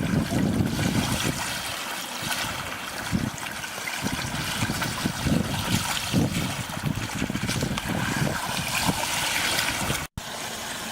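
Water trickling and splashing along a sailboat's hull under way, with uneven low swells. It breaks off abruptly near the end.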